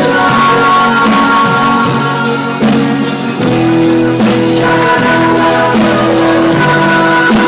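A live rock band playing an instrumental passage: sustained chords over a steady drum beat, with no lead vocal.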